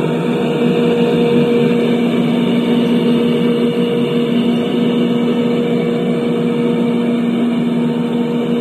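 A 1/20-scale Liebherr 996 hydraulic RC excavator running with a steady, engine-like drone and a constant hum, with no change in speed.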